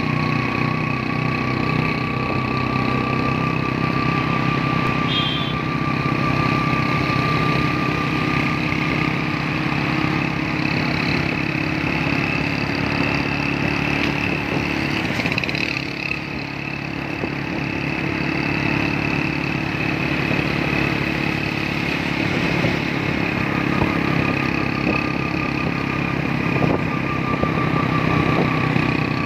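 Motorcycle engine running steadily while riding along a road, with a brief dip in the engine sound about halfway through.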